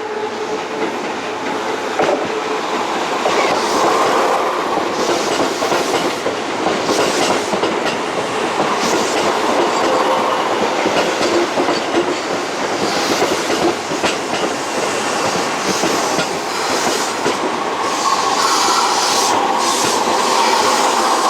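Electric commuter train moving through the station, with steady rolling noise, wheels clicking over rail joints and a faint whine, slowly getting louder.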